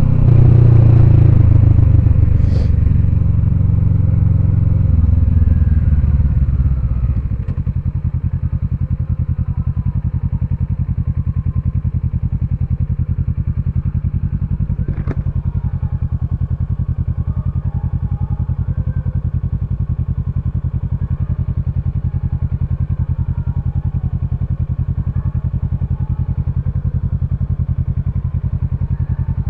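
Kawasaki Ninja 650's parallel-twin engine heard from the rider's helmet: running under way and louder for the first several seconds, then dropping to a steady idle about seven seconds in as the bike sits stopped in traffic. Two brief clicks, a couple of seconds in and about halfway through.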